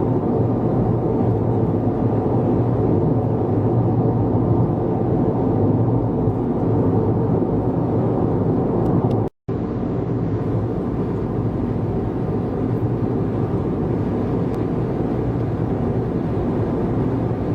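Steady road and engine noise inside a car cabin at expressway speed, a low even drone. It cuts out completely for an instant about nine seconds in, then carries on unchanged.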